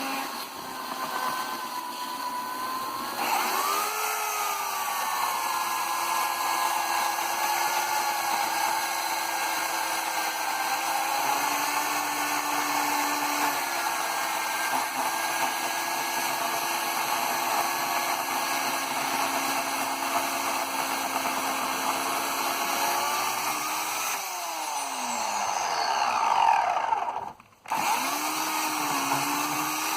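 Oregon CS1500 electric chainsaw running and cutting wood: a steady motor whine whose pitch shifts as the chain takes the load. Near the end the motor winds down with a falling pitch, cuts out for a moment, then runs again.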